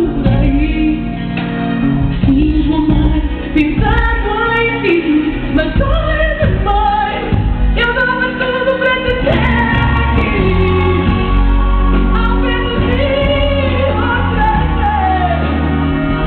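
A woman singing a pop song over loud backing music with a heavy, steady bass.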